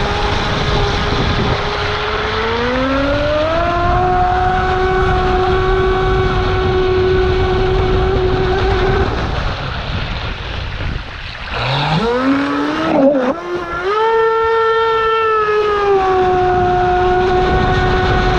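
RC boat's electric outboard motor whining under throttle over the rush of water and spray. Its pitch climbs about two seconds in and holds, then drops away about ten seconds in. It surges back up sharply near twelve seconds, wobbles, runs higher for a couple of seconds and settles slightly lower.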